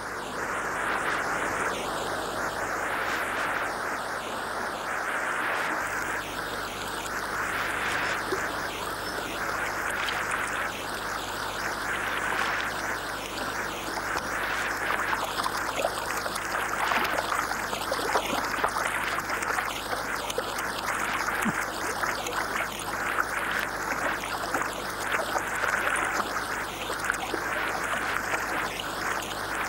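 Shallow river water rushing steadily over a stony riffle, with small irregular splashes and ticks in the second half.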